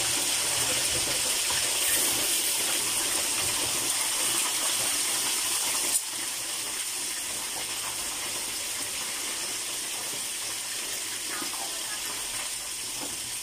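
Tilapia frying in hot oil in a pan on a gas stove: a steady sizzle. A single sharp tap comes about six seconds in, after which the sizzle is a little quieter.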